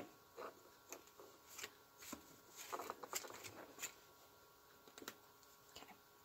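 Faint rustling and light taps of a fabric ribbon bow being handled and pressed down onto a fabric placemat: a scatter of short, soft sounds, busiest a little before the middle.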